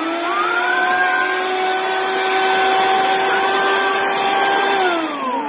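Electric hand mixer running, its motor giving a steady whine as the beaters whisk eggs in a steel bowl. About five seconds in, the whine drops in pitch as the mixer slows down.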